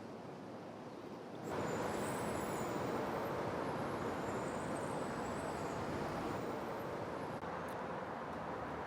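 Steady rushing noise of road traffic, which steps up abruptly about one and a half seconds in, with faint high whining tones coming and going above it.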